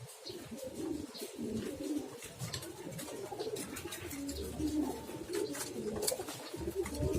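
Domestic pigeon cooing repeatedly in low warbling coos, with scattered short sharp clicks throughout.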